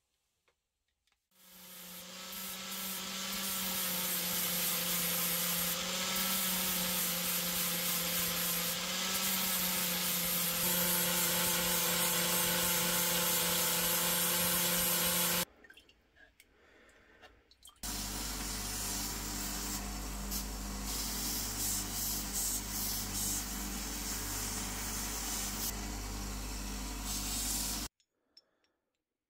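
Ryobi angle grinder with a flap disc spinning up about a second in and then grinding steel, a steady machine whine with rasping noise, cut off abruptly about halfway through. After a short gap, a second steady stretch of power-tool running with a deeper hum starts suddenly and cuts off suddenly near the end.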